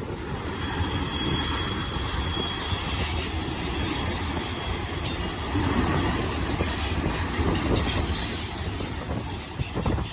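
BNSF double-stack container train's well cars rolling past, a steady rumble of wheels on the rails with high-pitched wheel squeal coming and going as the cars come off the curve, growing louder and busier in the second half.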